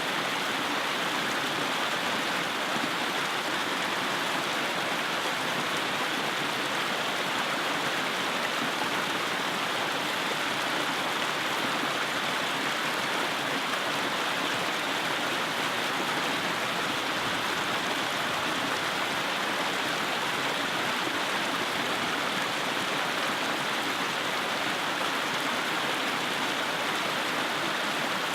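Mountain creek water rushing between rocks, a steady even rush of moving water.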